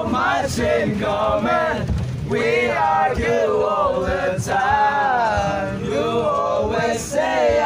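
A group of young men singing and chanting together loudly in chorus, over the low rumble of the bus they are riding in.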